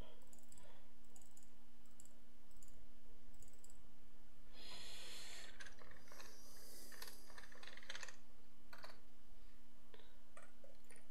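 Computer mouse clicking, then a quick burst of typing on a keyboard a few seconds in, then a few more clicks, all over a steady low hum.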